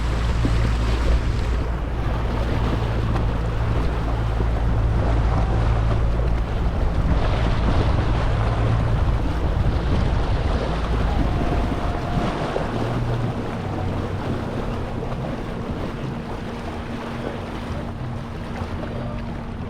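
A boat's motor running under way, with wind and rushing water. About twelve seconds in, the low engine drone falls away, leaving a steadier, higher hum under the wind and water.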